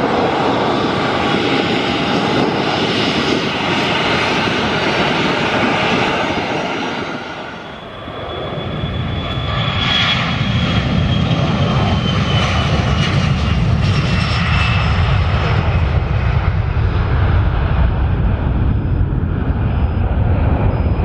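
Boeing 737-500's CFM56-3 turbofan engines whining at low power as it taxis. After a brief dip about eight seconds in comes a deep roar at takeoff thrust, with a high whine that slowly falls in pitch.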